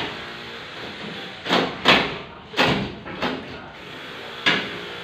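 A few sharp knocks and scrapes, about five over four seconds, each dying away quickly, over a faint steady hum.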